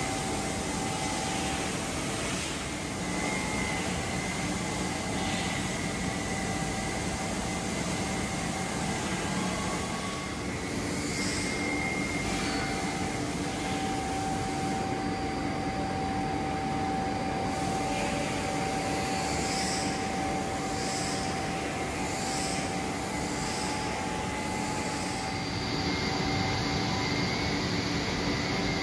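LOCH TB 4-52-2000 CNC deep hole drilling machine running: a steady mechanical hum and whine from its drives and hydraulics, holding several steady tones. A few brief high chirps come about a third of the way in and again in the second half.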